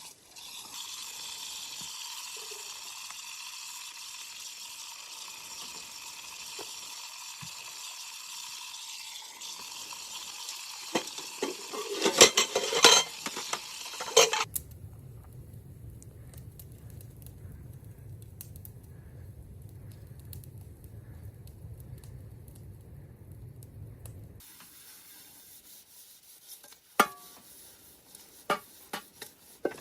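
A steady hiss with loud clattering about halfway through, then an abrupt change to a low steady hum, and later a few sharp clicks near the end.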